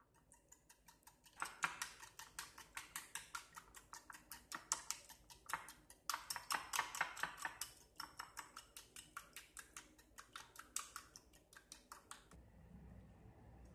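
Wire whisk beating raw eggs in a ceramic bowl: rapid, rhythmic clicking of the wires against the bowl, several strokes a second, stopping about a second before the end. A faint low hum remains after it.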